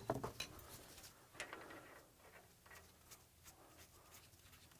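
Faint, scattered metallic clicks and taps: the axle nut being handled and started by hand on the axle shaft at the wheel hub.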